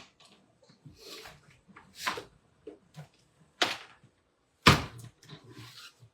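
Paper and a die being worked through a manual die-cutting machine: several short scraping and knocking sounds, the loudest a sharp knock nearly five seconds in.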